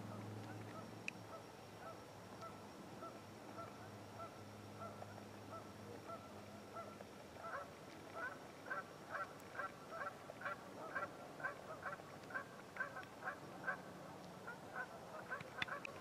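A flock of geese honking faintly. The calls grow busier about halfway through, several honks a second.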